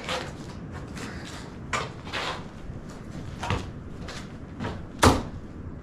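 Hiker's footsteps scuffing and crunching on a rocky trail, at an irregular pace, over a low rumble of wind and handling noise, with one sharp, louder knock about five seconds in.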